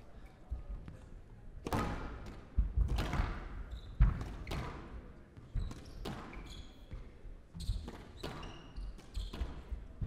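Squash rally: the ball smacks off rackets and walls in irregular sharp hits, each with a short echo, starting a little under two seconds in. Brief high squeaks of shoes on the court floor come between the hits.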